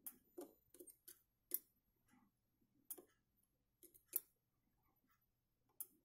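Faint, scattered small clicks and ticks, about a dozen at uneven intervals, as a soldering iron is worked against the header pins of an LCD circuit board.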